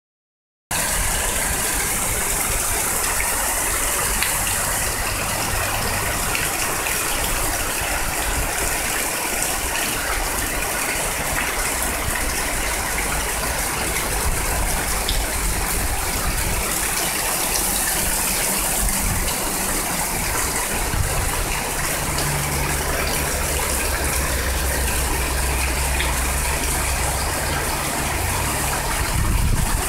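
Heavy rain pouring down steadily, with water streaming off the porch roof edge. A low rumble joins in during the last third.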